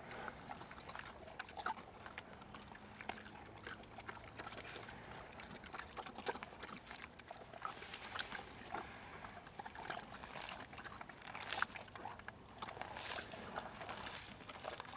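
Tamworth pig rooting with its snout in frozen turf, making irregular crunching and snuffling sounds as it digs and chews.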